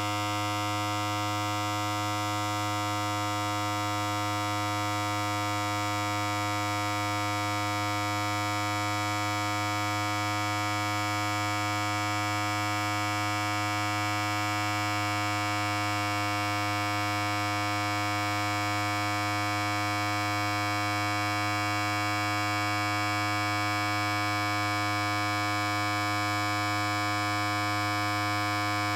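Electric hair clipper running continuously: a steady, even buzz with a strong low hum and many overtones.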